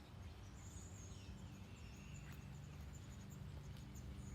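Faint room ambience: a low steady hum, with a few faint bird chirps in the background.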